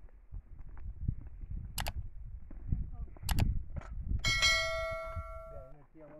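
Dull thuds and two sharp knocks, then a metal object struck once, clanging and ringing for about a second and a half before fading.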